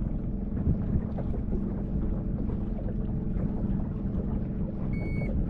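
Steady low drone of a boat motor running, with some wind on the microphone. Near the end comes a short high electronic beep.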